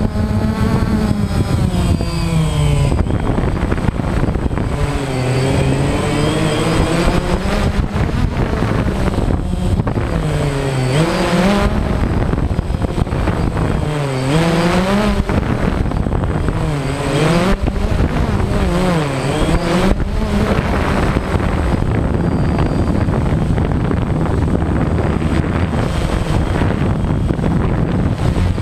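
DJI Phantom quadcopter's electric motors and propellers buzzing, heard through the on-board camera. The pitch dips and climbs back again and again as the motors change speed to steer, over a thin steady high whine.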